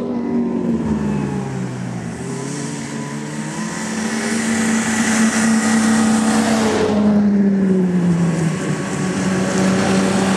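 Snowmobile engine running as the machine comes along the trail. Its pitch slides up and down with the throttle, and it grows louder about halfway through.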